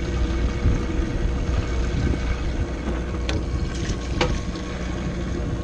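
Boat engine idling steadily, a low continuous hum. Two brief sharp sounds about a second apart come in the second half.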